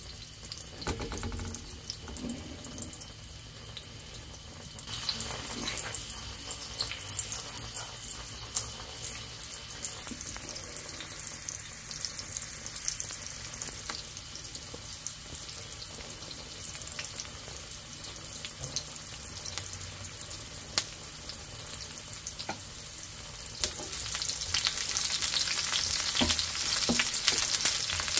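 Chopped onion sizzling in hot oil in an enamelled steel paella pan, a steady crackle of small pops. The sizzle grows louder about five seconds in, and louder again near the end as a wooden spatula stirs the onion through the oil.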